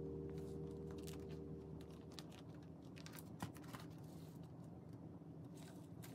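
Faint crinkles and light clicks of plastic binder sleeves and photocards being handled, scattered irregularly. A lingering musical tone fades out over the first two seconds.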